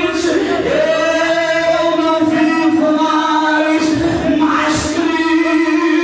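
Worship singing with music: voices holding long, sustained notes that move slowly from pitch to pitch.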